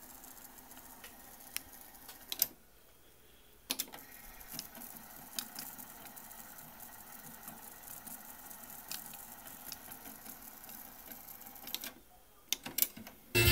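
Nakamichi BX-100 cassette deck's tape transport running with a faint whir and scattered light clicks. The whir stops briefly twice. Near the end a few louder clicks come as a transport button on the deck is pressed and the mechanism engages.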